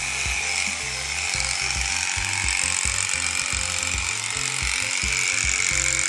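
Electric sheep-shearing handpiece running steadily as its comb and cutter work through a sheep's fleece close to the skin. Background music with a regular beat plays underneath.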